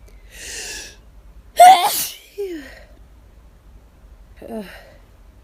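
A person's hay fever sneeze: a drawn-in breath, then one loud, explosive sneeze about a second and a half in. A short vocal sound falling in pitch follows right after it, and another comes near the end.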